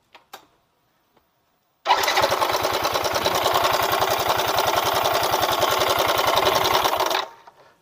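Yamaha Mio M3 125 scooter engine starting about two seconds in, running rough for about five seconds and then cut off. The rough noise is still there with the CVT parts checked; the mechanic goes on to suspect the cam chain and a weakened cam-chain tensioner.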